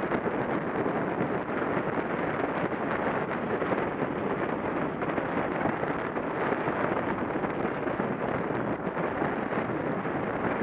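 Steady wind rushing over the microphone of a camera on a track bike moving at about 25 mph.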